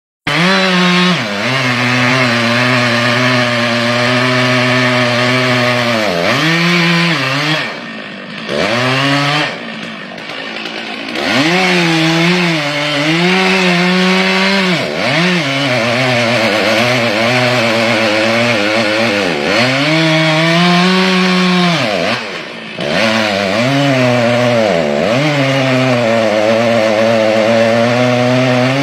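Large two-stroke chainsaw running at full throttle, its long bar cutting into a thick tree trunk. The engine note sags repeatedly as the chain bogs into the wood or the throttle eases, then climbs back to full revs.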